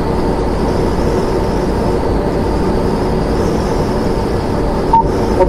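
Steady engine and road noise inside a fire apparatus's cab as it drives at highway speed, with a short beep near the end.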